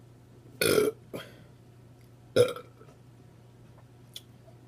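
A woman burping twice: a longer, loud burp a little over half a second in, and a shorter, sharp one about two and a half seconds in.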